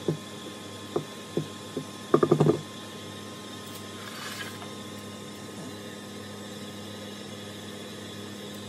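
A few sharp knocks, then a brief clatter of ringing knocks about two seconds in: a silicone spatula and a stainless steel mixing bowl being handled at the end of mixing batter. A steady low hum runs underneath.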